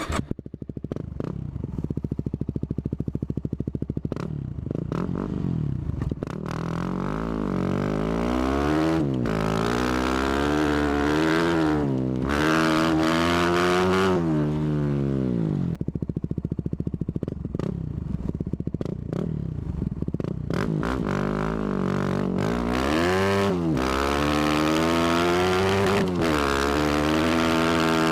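Yamaha WR250R's 250 cc single-cylinder four-stroke engine through an FMF Power Core 4 exhaust with the spark arrestor removed, starting up, idling with a fast even beat, then being revved up and let fall back several times.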